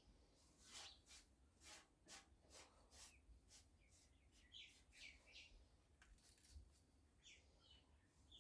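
Faint bird chirps over near silence, with a run of faint, short scratchy clicks in the first few seconds.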